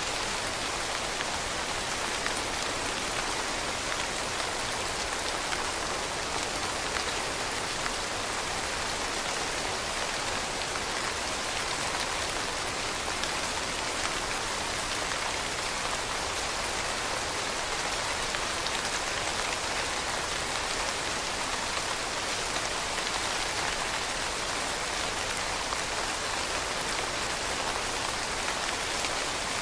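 Steady rain falling on leaves, a dense even patter of drops with no single drop or gust standing out.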